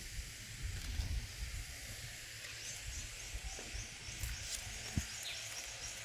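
Garden ambience: an uneven low rumble on the microphone under a steady hiss, with faint short high chirps in the second half and a single sharp click about five seconds in.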